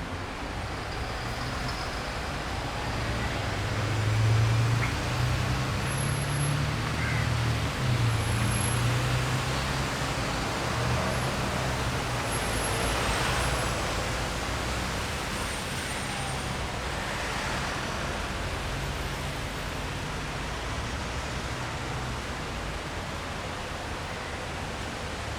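A vehicle's low engine hum swells about four seconds in and eases off over the following seconds, over a steady hiss.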